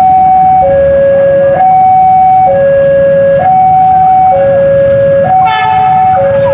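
Railroad level-crossing warning alarm sounding, two steady tones alternating high and low, each held just under a second, over a low rumble of engines. A short horn blast cuts in about five and a half seconds in.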